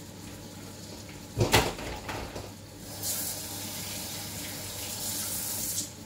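A sharp knock about a second and a half in, then water running for about three seconds and stopping abruptly just before the end, as water is added to cover the soup ingredients.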